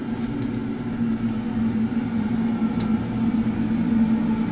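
Gas-fired ribbon burner forge running steadily on low at about 7 psi, a steady low hum with a faint click in the middle. The burner is on tick over while the new forge dries out.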